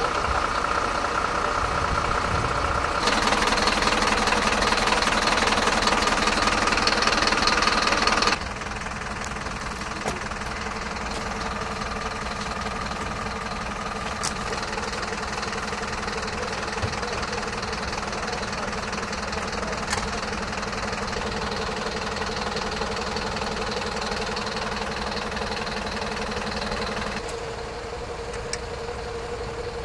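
Vehicle engines running steadily at idle, a continuous low drone with a few faint clicks. The hum changes abruptly about three seconds in, about eight seconds in and near the end.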